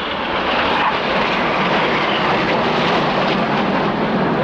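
BAE Hawk jets flying by, their Adour turbofan engines giving a steady, loud jet noise.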